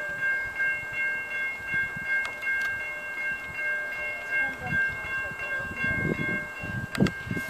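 Grade-crossing warning bell ringing in a steady, even repeat, about twice a second. Low uneven thumps and a sharp click come in near the end.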